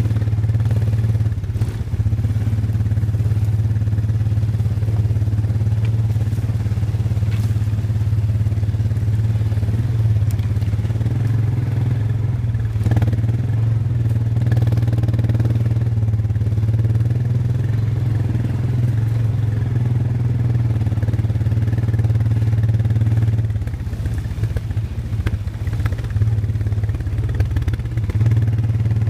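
Small ATV engines running steadily at trail speed, one low, even engine note. It eases off for a few seconds late on and then picks back up.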